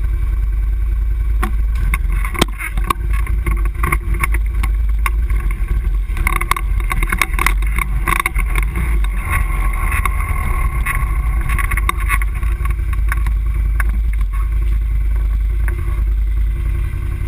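ATV engine running with a steady low rumble, with a few sharp knocks about two to three seconds in. From about six seconds in the engine note rises and strengthens for several seconds as the ATV drives along the dirt trail.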